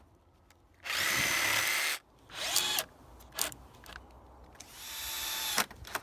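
Power tools working pallet wood, a Bosch jigsaw and a cordless drill, running in short bursts with pauses between. There is a steady run of about a second, a brief spin up and down, and a longer run near the end that grows louder.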